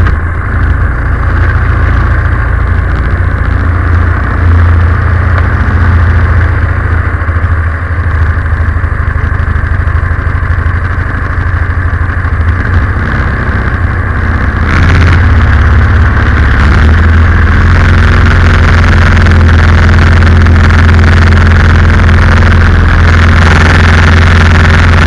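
Predator 212cc single-cylinder four-stroke engine running steadily as an inboard driving a canoe. About fifteen seconds in it gets louder and brighter, then holds at that higher level.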